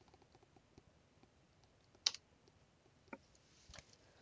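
A few faint, sparse clicks from computer keyboard keys and mouse buttons. The sharpest and loudest comes about two seconds in, with two softer ones about a second and a second and a half later, as an entered value is confirmed in the software.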